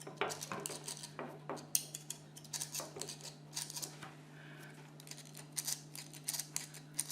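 Light, irregular metallic clicks and small rattles from the parts of a dismantled electric parking brake unit being handled, growing denser in the second half, over a steady low hum.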